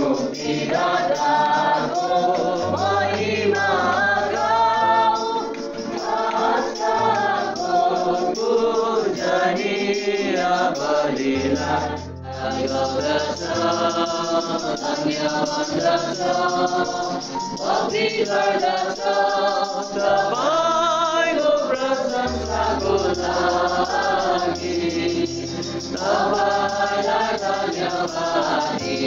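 A group of voices singing a Christian hymn together, with long held low keyboard notes beneath. The singing breaks off for a moment about twelve seconds in and then carries on.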